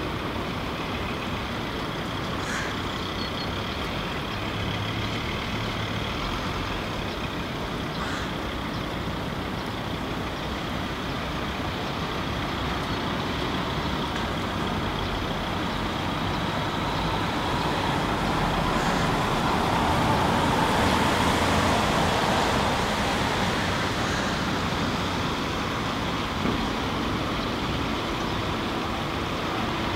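Steady noise of rain mixed with a low rumble like distant road traffic, swelling for a few seconds about two-thirds of the way through.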